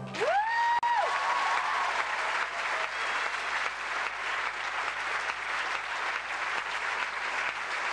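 Theatre audience applauding at the end of a song, heard through an old camcorder's microphone. A rising cheer rings out over the clapping near the start.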